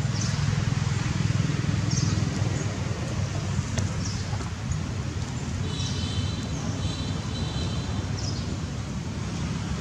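Steady outdoor background noise with a low rumble like distant traffic, broken by short high chirps every second or two and a brief high trilling call about six seconds in that comes again a second later.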